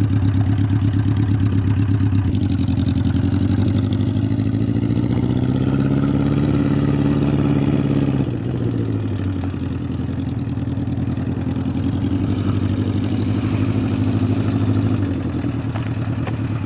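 Motorcycle engine running. Its speed climbs slowly for a few seconds, falls back sharply about eight seconds in, then settles to a steady idle.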